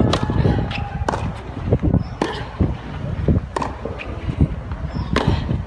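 Tennis rally: a ball struck back and forth with rackets, about five sharp hits roughly a second or so apart, over a low rumble.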